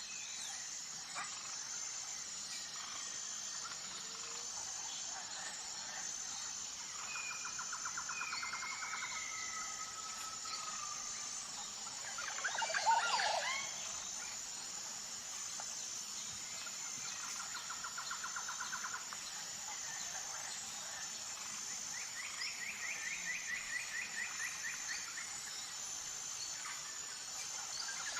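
Outdoor nature ambience: birds trilling in rapid repeated notes, over a steady pulsing insect drone. A louder burst of calls about halfway through.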